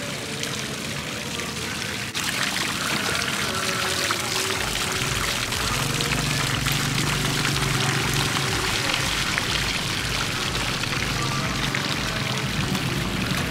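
Water pouring and splashing from the bowls of a tiered garden fountain into its basin, a steady rush that gets louder about two seconds in. Background music with a steady low beat comes in under it about four seconds in.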